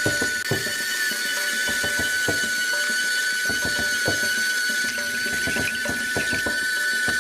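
Small electric motor whining steadily at a high, even pitch, with irregular clicking and rattling from the mechanism it drives.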